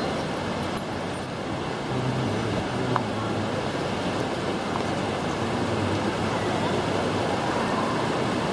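Heavy rain pouring steadily onto a paved plaza and shelter roofs, a dense even hiss, with a low vehicle engine rumble joining from about two seconds in.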